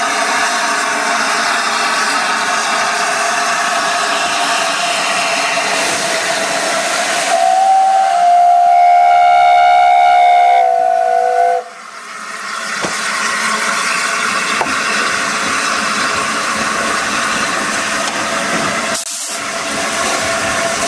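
Steam locomotive 60163 Tornado, an LNER Peppercorn A1 Pacific, hissing steam steadily. Its whistle sounds for about four seconds near the middle, then the sound cuts off suddenly and the hiss builds back up.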